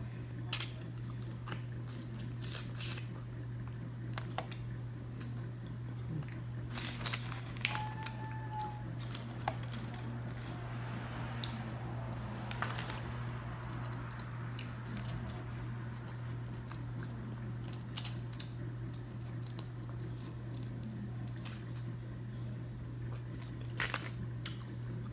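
Close-up eating sounds of charbroiled oysters being chewed, with scattered sharp clicks and rustles of oyster shells handled on a foil-lined tray, over a steady low hum.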